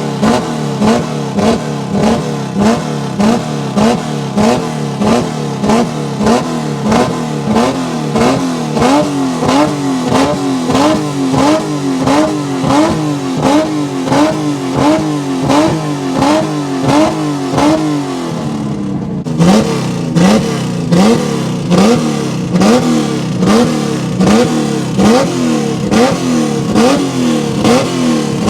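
Chevrolet Opala engine revved hard over and over in quick, regular blips, roughly one to two a second, each a short rise and fall in pitch. It is loud throughout, with a brief dip and break a little after two-thirds of the way through before the revving resumes.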